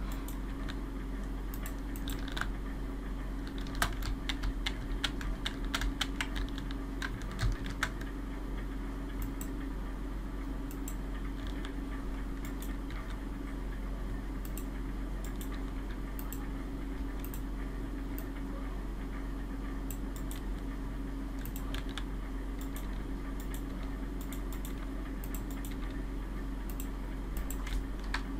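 Computer keyboard keys and mouse buttons clicking in scattered runs, busiest in the first eight seconds and sparser after, over a steady low hum.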